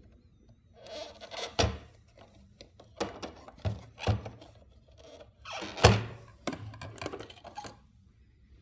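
Plastic handling sounds from a Viomi A9 cordless vacuum's clear dust bin and cyclone filter being worked loose by hand: rubbing and scraping with three sharp knocks, the loudest about six seconds in.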